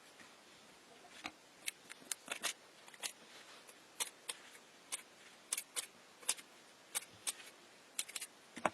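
A run of short, sharp clicks and snaps at irregular intervals, roughly two a second, starting about a second in, with the loudest near the end: small hard parts being handled or cut by hand.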